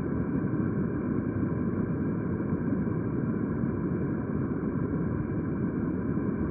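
Mountain stream running over a stony riffle: a steady, low rushing of water.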